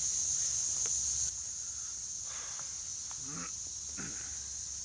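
Steady high-pitched drone of a chorus of insects such as crickets, dropping a little in level about a second in, with faint distant voices.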